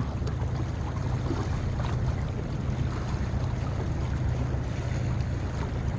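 Seaside ambience: a steady low hum under wind and sea noise.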